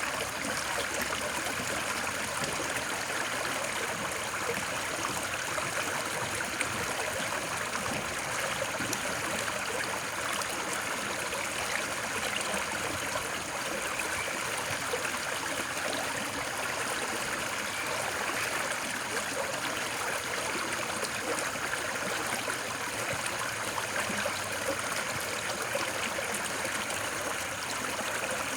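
Steady, unchanging rush of running water, like a stream, with no breaks or separate events.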